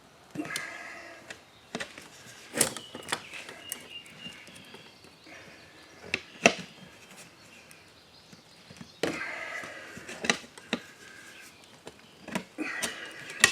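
Lawnmower tire's rubber bead squeaking and scraping against the rim as it is pried off with pry bars, with sharp metal knocks now and then.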